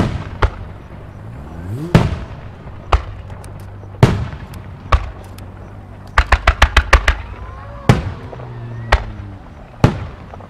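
Aerial firework shells bursting with sharp booms about once a second, with a rising whistle into the burst about two seconds in. About six seconds in comes a rapid string of about ten crackling bangs.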